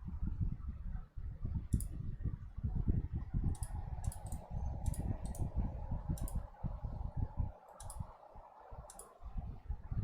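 Uneven low rumbling of an electric fan's wind buffeting the microphone, with a scattering of sharp clicks, several close together about four seconds in.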